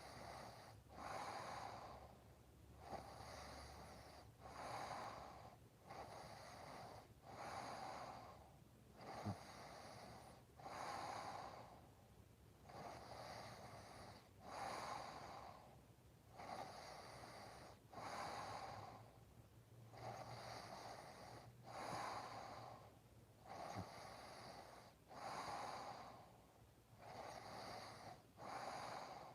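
Snoring in sleep: slow, regular, noisy breaths, one about every two seconds, faint.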